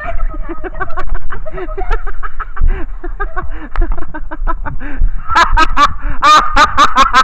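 Laughter: a run of short repeated "ha" syllables, breaking into louder, harder laughing about five seconds in.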